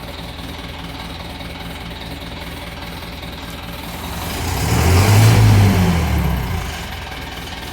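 Engine idling, then revved once about four seconds in: the pitch and loudness climb, peak and fall back to idle over about three seconds.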